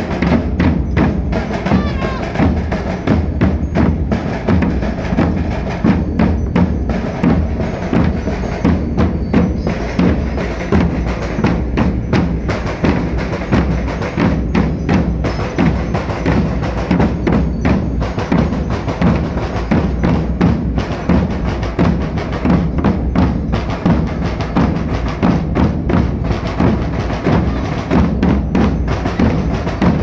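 A group of Portuguese bombos (large double-headed bass drums) and snare drums beaten with sticks, playing together in a steady, driving rhythm without a break.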